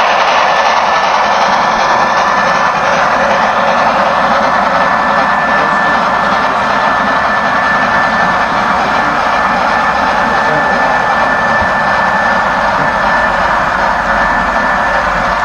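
HO-scale model freight train of tank cars rolling past on the track: a steady rolling noise of the metal wheels on the rails, with a thin steady high whine through it.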